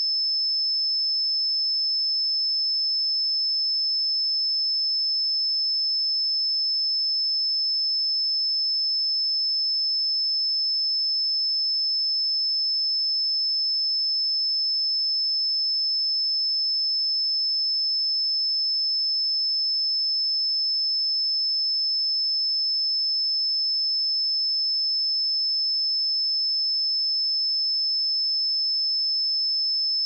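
A steady, high-pitched 5248 Hz sine-wave test tone: one pure, unchanging pitch held at a constant level.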